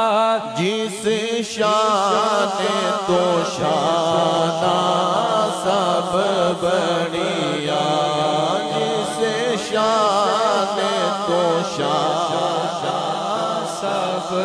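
A solo man's voice in melismatic Islamic devotional recitation, unaccompanied. The pitch winds and wavers through long ornamented phrases with only brief breaths between them.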